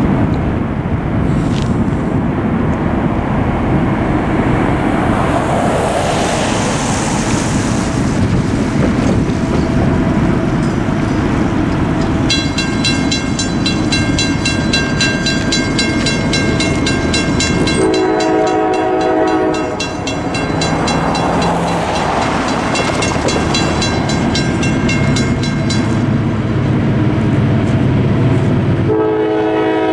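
A railroad crossing's mechanical bell starts ringing rapidly and continuously about twelve seconds in as the crossing activates. It falls silent shortly before the end, once the gates are down. The bell is a first-generation Western Cullen Hayes unit that the uploader describes as dying. The approaching Norfolk Southern freight's locomotive horn sounds a blast of about two seconds partway through, and another begins just before the end, over a steady broad rushing noise.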